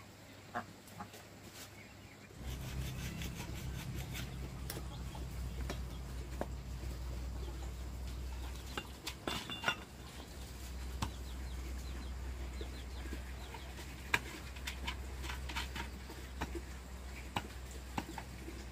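A small electric motor starts humming about two and a half seconds in and runs steadily, with scattered light clinks and taps of metal.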